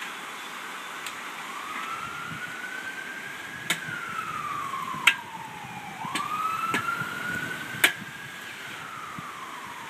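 An emergency vehicle's siren wailing, its pitch rising and falling slowly in two long sweeps. Four sharp knocks cut through it, the loudest about halfway, as the metal fence panel is handled.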